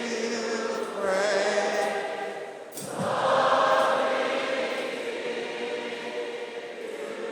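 A large congregation singing a worship song together with musical accompaniment, swelling about three seconds in and then holding.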